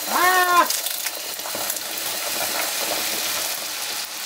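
Hot caramelised sugar in a frying pan sizzling and bubbling hard as water is added to it from a ladle, an even hiss throughout. A brief rising-and-falling vocal exclamation in the first half second.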